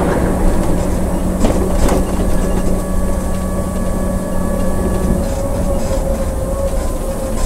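Scania coach's diesel engine and drivetrain running steadily in third gear on a downhill grade, heard from inside the driver's cab: a constant low rumble with a steady whine that drops away about five seconds in. The engine is held in the rev counter's blue band so that it brakes the coach on the descent. Two light knocks sound near two seconds in.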